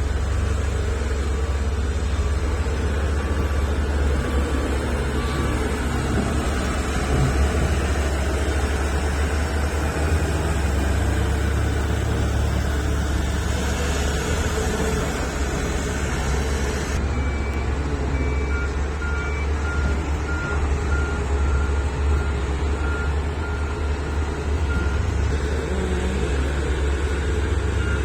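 Large diesel engines of excavators and dump trucks running steadily under load, with a heavy low rumble. A reversing alarm beeps in an even series near the start and again from a little past halfway to the end.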